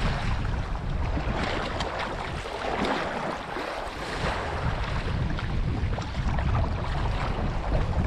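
Wind buffeting the microphone over water splashing and rushing along a sailing kayak's hull. The wind rumble eases for a moment about halfway through.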